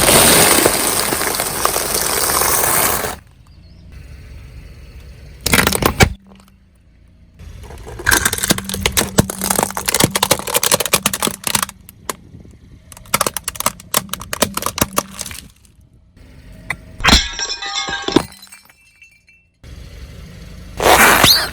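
Things being crushed under a car's tyres: several separate bouts of cracking, crackling and breaking, the first a loud hissing burst of about three seconds, then short sharp breaks and longer stretches of dense crackling with pauses between them.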